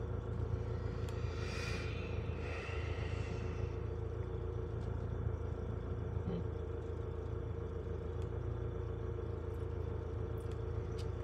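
Heavy diesel log-loading equipment running steadily: a low, even rumble with a constant hum, heard from inside a truck cab. A brief rushing noise rises and fades about one to four seconds in.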